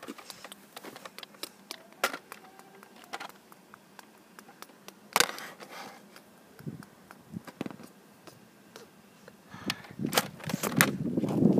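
Scattered clicks and knocks of a phone and a toy blaster being handled, with one sharper knock about halfway, then scuffing footsteps on pavement that grow louder and busier near the end.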